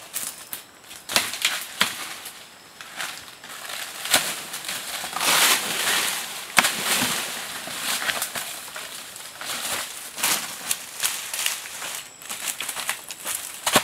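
Dry leaves, twigs and brush crackling, snapping and rustling as a person tramples through undergrowth and pulls at plant stems, with a louder, longer rustle about five seconds in and scattered sharp snaps throughout.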